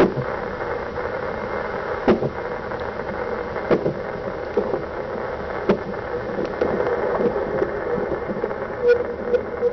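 Fetal doppler hiss through a loudspeaker, broken by sharp thumps a second or two apart: an unborn baby hiccupping in the womb.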